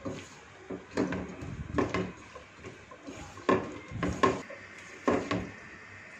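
Silicone spatula stirring and tossing shredded cabbage, onion and chicken in a nonstick pan: repeated scraping, clattering strokes, about one a second.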